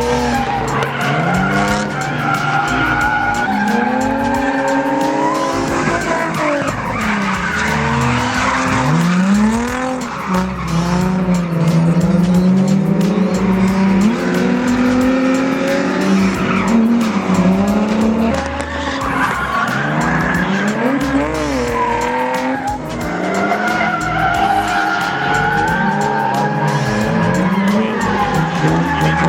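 Drift cars sliding on track: engines revving up and down again and again as the throttle is worked, over continuous tyre squeal.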